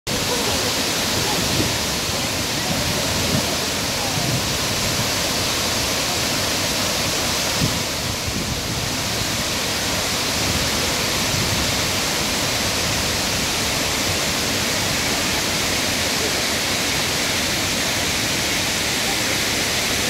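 Shiraito Falls' curtain of many thin cascades pouring over a rock wall into a plunge pool: a steady, even rush of falling water.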